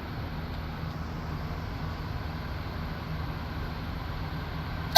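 A steady low hum runs through, then right at the end a single very loud gunshot cracks out and rings away.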